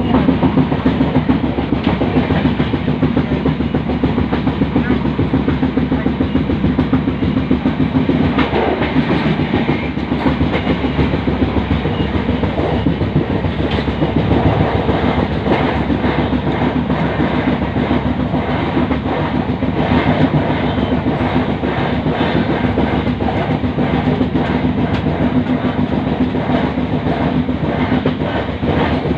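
Train running along the track, a steady rumble with the wheels clattering over rail joints throughout.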